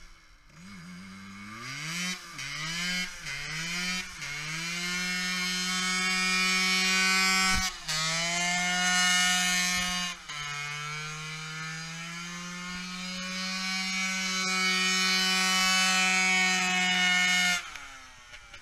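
Small two-stroke moped engine revved in several quick blips, then held at high revs while the rear tyre spins in a smoky burnout. Two brief dips in the revs come mid-way, and the engine drops off suddenly near the end.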